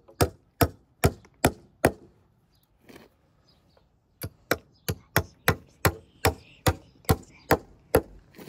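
Claw hammer blows on a wooden post-and-rail fence, driving a fixing into the timber rail. Sharp, evenly spaced strikes about three a second, pausing for about two seconds, then another run of about a dozen blows.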